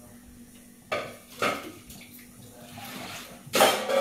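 Dishes and kitchenware clattering as they are handled at the counter: two knocks about a second in and a louder clatter near the end.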